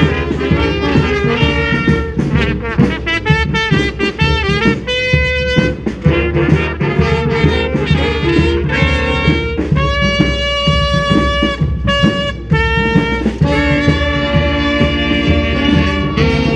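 Brass street band playing: trumpets, saxophones and trombones over drums, moving from quick phrases into long held chords about ten seconds in.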